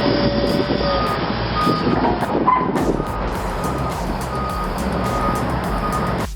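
Heavy earthmoving machine's diesel engine running, with its reversing alarm beeping steadily from about a second in as it backs up. Background music plays under it.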